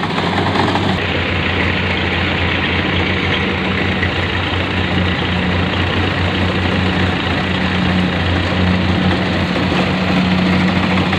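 Rice combine harvester's engine running steadily under load, a constant low hum with a dense mechanical noise over it.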